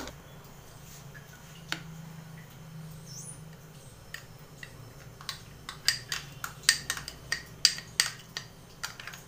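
Metal spoon clinking and scraping against a glass bowl as cake batter is pushed out of it into a steel tin. The first few seconds are quiet with one stray click, then a quick run of sharp clinks begins about five seconds in.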